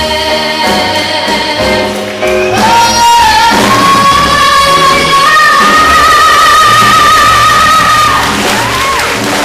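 Female jazz and soul vocalist singing live with a jazz trio in a hall. From about two and a half seconds in she holds one long high note for some five seconds, climbing in small steps, then lets it fall away near the end.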